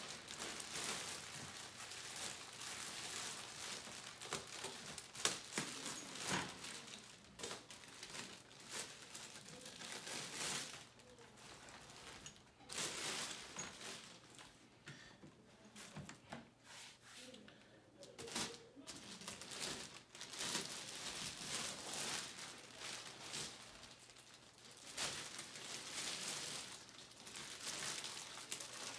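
Plastic packaging wrap crinkling and rustling in irregular bursts as chair parts are unwrapped.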